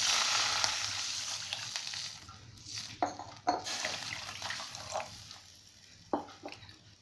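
Water poured into a hot kadhai of ghee-sautéed ginger, garlic, corn and carrot: a loud hiss and splash that fades over about two seconds. A few light clinks against the pan follow.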